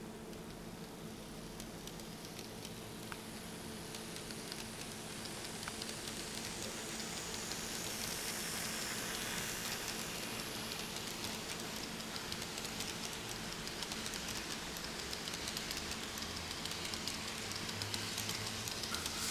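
Kato E233 Chuo Line model train running along the track: a steady rushing with fine clicking from the wheels and a low motor hum, growing louder over the first several seconds as it passes.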